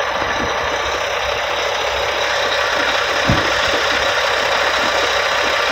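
Truck engine held at raised revs to drive the air blower that pressurises a dry bulk trailer for unloading. It makes a loud, steady rushing drone, with one soft thump about three seconds in.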